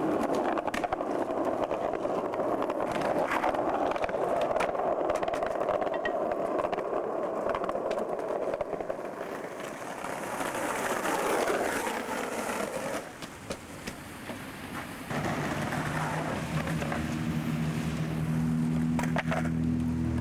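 Skateboard wheels rolling over street paving, a continuous rough roll with a few clicks. It dips quieter about thirteen seconds in, and from about fifteen seconds a steady low hum joins it.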